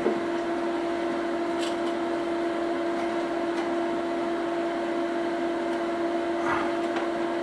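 Steady electrical hum holding one clear tone and its overtone over a faint hiss, with a small click about one and a half seconds in.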